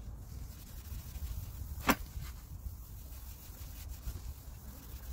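Gloved hand rubbing an abrasive pad over a plastic headlight lens to remove the faded lacquer, under a low rumble of wind on the microphone. A single sharp click about two seconds in.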